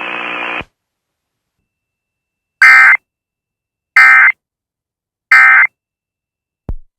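Three short, loud bursts of SAME data tones, about a second and a third apart, from a NOAA Weather Radio broadcast. They are the end-of-message code that closes a weekly alert test. The steady radio hum of the broadcast cuts off about half a second in, and a brief blip sounds near the end.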